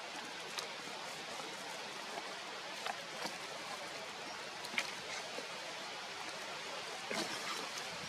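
Steady outdoor background hiss, with a few faint short ticks scattered through it.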